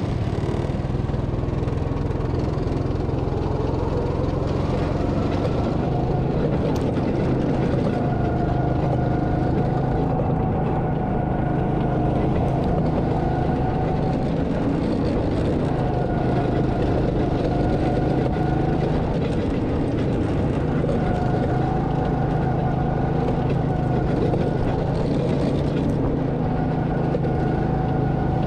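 Go-kart engine running steadily while the kart is driven around the track, heard close up from the driver's seat, with a higher whine that comes and goes several times.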